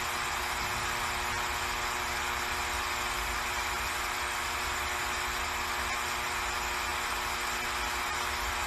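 A steady hum with hiss, even throughout, with no voices, clapping or knocks standing out.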